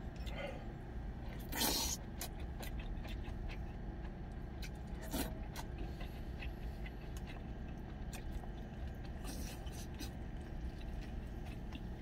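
Wooden spoon scraping and knocking in a stainless steel lunch container, with chewing and small mouth clicks throughout; the loudest scrapes come about a second and a half in and again around five seconds. A low steady hum runs underneath.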